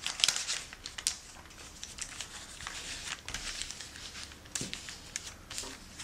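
Brown paper bag being folded and creased by hand, its flaps opened and pressed flat: irregular crinkling and rustling of the paper, busiest in the first second and again near the end.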